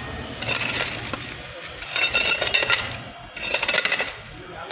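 Bursts of sharp clinking and scraping of hard objects, coming in groups roughly every second and a half.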